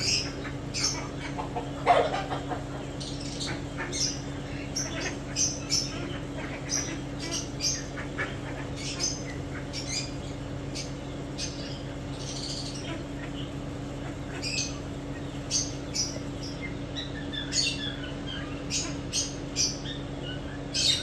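Many short, high-pitched animal chirps and squeaks, scattered irregularly, over a steady low hum; about two seconds in, one louder squawk falls in pitch.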